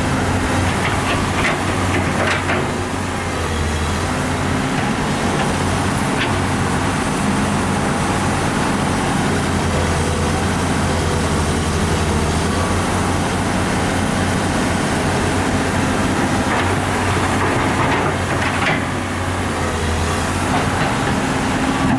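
The diesel engine of heavy earthmoving machinery runs steadily under load, with a few sharp metallic clanks scattered through.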